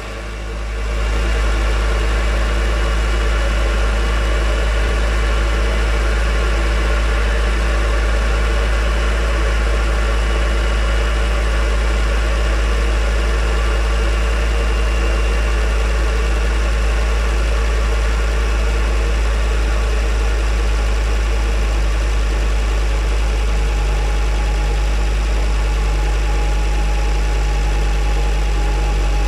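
Ford Focus ST mk2's 2.5-litre turbocharged five-cylinder engine idling steadily just after a cold start, breathing through an aftermarket Ramair intake with an open cone filter. The sound rises over the first second, then holds steady.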